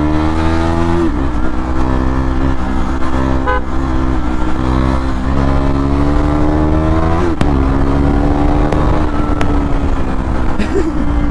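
KTM Duke 390's single-cylinder engine through an SC Project CR-T slip-on exhaust, pulling through the gears: the pitch climbs, drops back at a shift about a second in and again about seven seconds in, then climbs and falls once more near the end. A short horn toot comes about three and a half seconds in.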